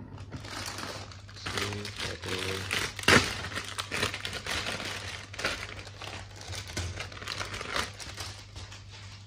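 Clear plastic packaging bag crinkling as it is handled and red plastic model-kit runners are pulled out of it, with quick clicks of the plastic runners; the loudest crackle comes about three seconds in.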